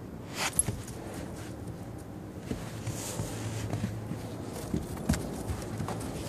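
Footsteps and a dog's paws crunching and scuffing in snow, with scattered light knocks and a short rustling burst about half a second in. A low steady hum comes in about halfway through.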